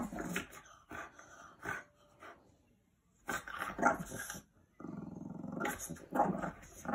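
French bulldog snorting and grunting in short irregular bursts with its face pressed into a bedsheet, rooting at the fabric; past the middle comes a longer buzzing grunt lasting about a second.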